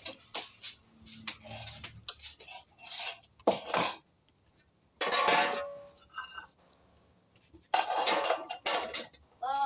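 Plates and cutlery being handled, clattering and clinking in an irregular series of short knocks, with a few longer clattering bursts in the middle and near the end.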